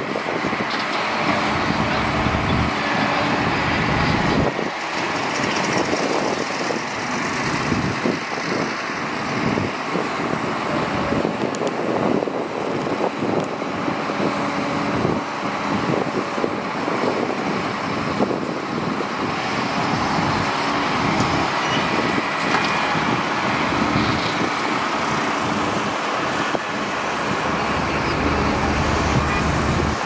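Heavy diesel earthmoving machines, an excavator and dump trucks, running at work, with scattered knocks and clanks of soil and rock.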